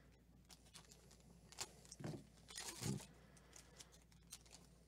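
Foil wrapper of a 2012 Panini Cooperstown baseball card pack crinkling and crackling as it is handled and torn open, with scattered small clicks and the loudest rustle about two to three seconds in.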